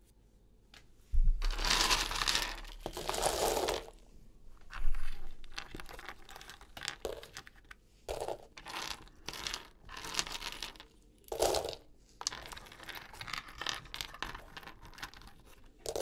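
Paper crinkling and dried runner bean seeds clicking and rattling against one another as they are handled, in a series of short bursts.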